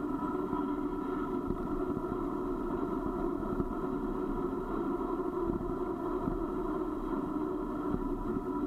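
Steady rolling rumble of a vehicle going down a rough, gritty mountain road, with a constant drone and small scattered knocks and rattles.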